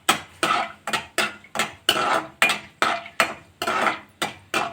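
Stirring spoon scraping and knocking against a kadai in quick, even strokes, about two to three a second, as whole spices are lightly fried in oil and ghee.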